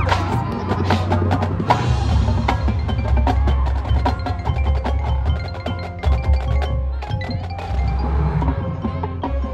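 Marching band show music led by the front ensemble's mallet percussion: quick struck marimba- and bell-like notes with sharp clicking hits, over a steady low bass.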